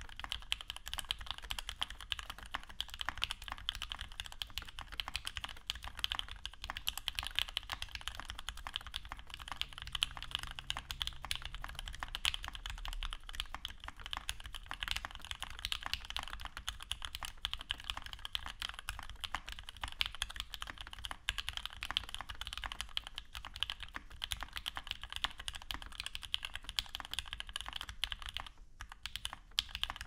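Steady fast typing on a custom mechanical keyboard, a TGR Jane V2 with an aluminium case and full aluminium plate, lubed linear "Minks" switches (Gateron Giant stem, Milky top, Ink bottom) and Cherry G81-3077 keycaps: a dense run of key clacks with a brief pause near the end.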